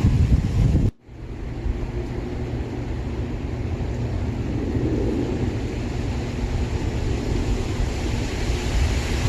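Strong wind gusting and buffeting the microphone, a continuous low rumbling noise. It cuts out abruptly about a second in, then picks up again.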